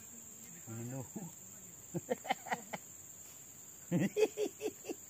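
Insects droning in one steady, high-pitched tone throughout. Brief snatches of low, unclear talk come about a second in, around two seconds and around four seconds, louder than the drone.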